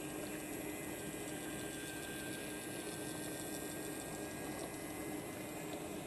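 Small motor and gears of a battery-powered toy train running steadily as it pushes wooden toy subway cars around a plastic track: an even mechanical whir with faint ticks.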